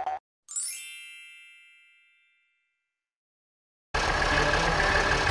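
A bright, bell-like intro chime rings out and fades away over about two seconds. After a short silence, an animated truck's engine sound effect starts abruptly about four seconds in and runs steadily.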